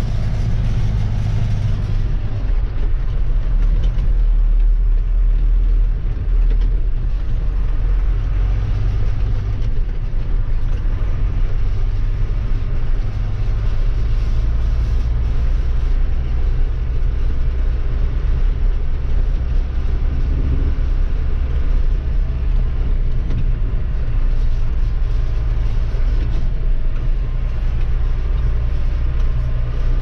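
John Deere 6506 tractor's engine running steadily, a low drone heard from inside the cab as the tractor drives.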